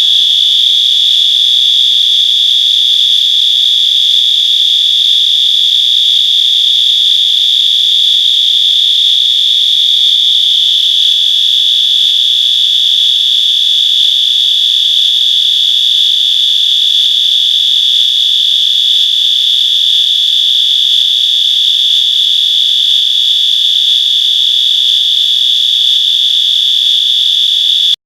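Fire alarm sounding a loud, continuous high-pitched tone on its high-volume continuous setting. The tone holds steady and cuts off suddenly near the end.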